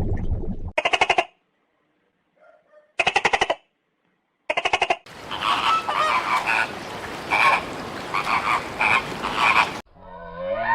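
Animal calls: three short croaks made of rapid pulses, one to two seconds apart, then a longer noisy stretch of repeated calls.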